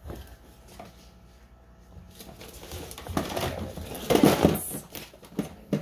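Handling noise: a quiet moment, then rustling and clattering of objects being moved, loudest about four seconds in, with a sharp click near the end.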